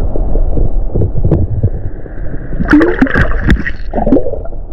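Water splashing and gurgling close to the microphone while a freshly caught trout is handled at the creek's edge to remove the hook, with sharp knocks of handling.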